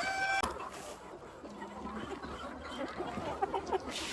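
Free-range chickens clucking, with short scattered calls; a held pitched call, likely the end of a rooster's crow, stops about half a second in.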